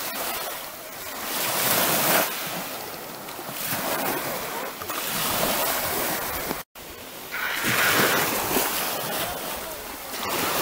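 Sea surf washing on a beach, the noise swelling and falling about every two seconds. The sound cuts out for a split second about two-thirds of the way through.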